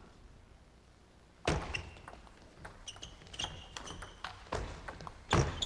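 Table tennis rally: a celluloid ball struck by the players' bats and bouncing on the table, heard as a string of sharp clicks and knocks. The first hit comes about a second and a half in, and a louder hit comes near the end.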